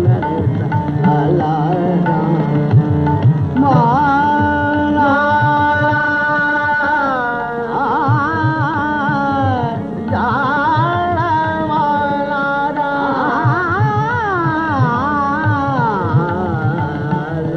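Male Hindustani classical vocalist singing raag Gurjari Todi, with long held notes ornamented by wavering slides, over tabla accompaniment.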